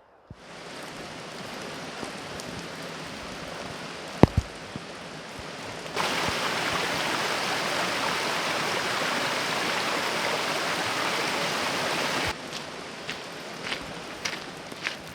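Steady rush of running water, louder from about six seconds in and dropping back near the end. A sharp knock sounds about four seconds in, and there are a few light clicks near the end.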